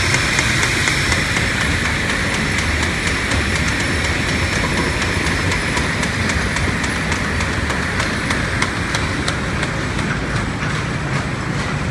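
Lineshaft machinery running: flat belts turning over cast-iron pulleys and a countershaft, a steady mechanical rumble with a regular clicking repeating several times a second.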